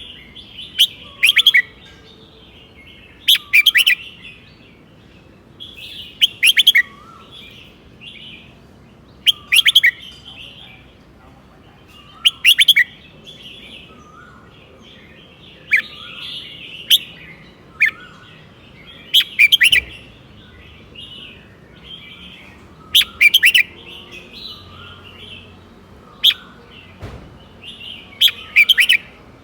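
Red-whiskered bulbul singing: short, loud, sharp phrases repeated about every three seconds, with softer chattering notes between them.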